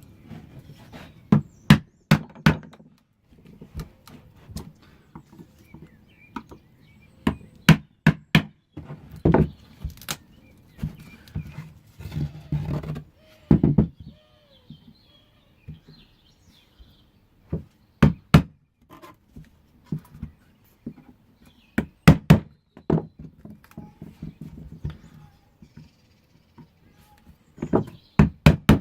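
Mallet striking an old screwdriver held against cured polyester resin blanks to knock them out of a wooden casting former. The result is a long series of sharp knocks, some single and some in quick pairs or clusters, with short pauses between.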